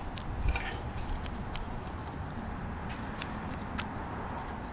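A scattering of light, sharp clicks from fingers working the carbon brushes and spring-loaded brush holders in the brush pack of a ZY1020 48 V 1000 W brushed DC motor, over a steady background hiss.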